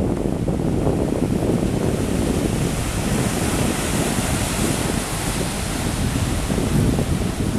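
Wind rumbling on the microphone over a steady wash of sea waves, with a hiss that swells and fades in the middle.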